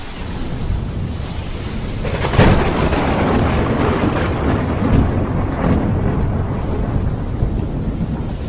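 Thunderstorm with heavy rain: steady rain hiss, a loud thunder crack about two and a half seconds in, then further cracks and a rolling rumble of thunder.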